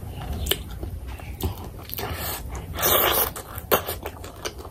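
Close-miked eating sounds from a mouthful of oily fish curry: wet lip smacks and chewing clicks, with a short airy burst about three seconds in.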